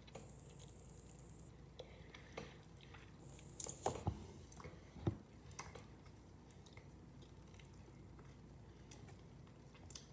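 Faint wet smacks and clicks of lips pressing together and parting over freshly applied lipstick: a few in a cluster about four seconds in, a sharper one about five seconds in, and another near the end.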